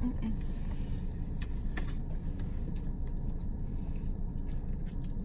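Steady low rumble of an idling car heard from inside the cabin, with a couple of faint clicks of chewing.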